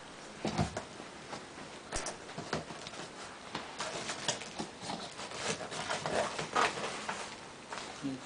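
Packing for a computer case being handled: irregular rustling, crinkling and small knocks.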